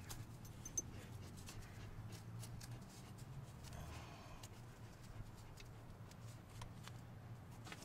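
Faint rustling and small clicks of tape being handled and wrapped around an ear-taping post, with one sharp click about a second in, over a steady low hum.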